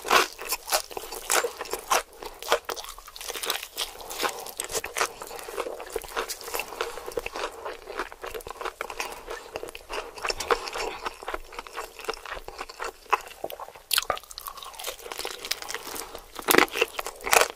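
Close-miked crunching and chewing of crispy battered fried chicken: a dense run of crackly bites and chews, with the loudest crunches right at the start and near the end.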